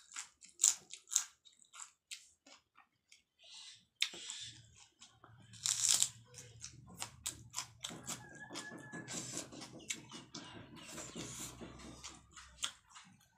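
A person chewing and crunching crisp food in their mouth: quick crackling bites and wet mouth clicks, thickest in the first half and thinning later.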